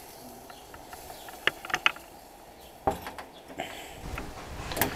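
The steel door of a Masterbuilt propane smoker being swung shut: a few light metallic clicks, then a single knock as it closes about three seconds in, over a faint steady hiss.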